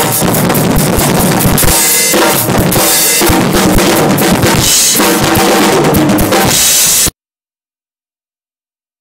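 Drum kit played hard and fast, with bass drum, snare and crashing cymbals. The sound cuts off suddenly about seven seconds in, leaving dead silence.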